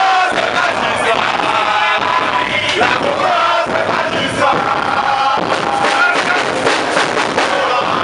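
A group of men singing and chanting together, many voices at once.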